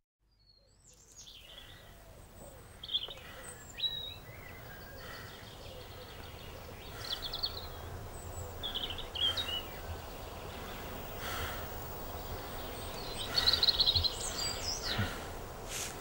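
Woodland ambience fading in over the first second or two: a steady outdoor hush with songbirds calling, short chirps and whistles scattered throughout, and a louder rapid trill near the end.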